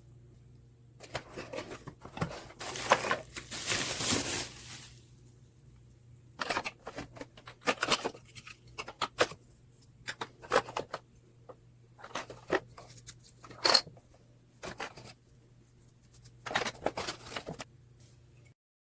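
Packaging and parts being handled: a stretch of rustling and tearing a second or so in, then scattered clicks, scrapes and rustles, over a faint steady hum.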